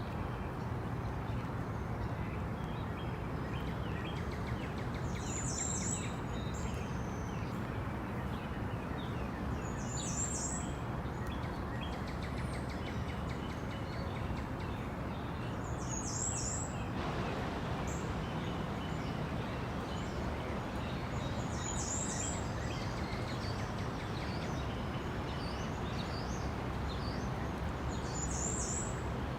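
Tropical rainforest ambience: a steady background hiss with a short, high-pitched bird call repeating about every five to six seconds, five times.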